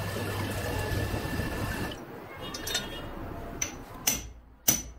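Water splashing and sloshing as chrome-plated tap parts are handled in a rinse tub, then a few sharp metallic clinks and knocks of a tap body being handled on a workbench, the loudest near the end.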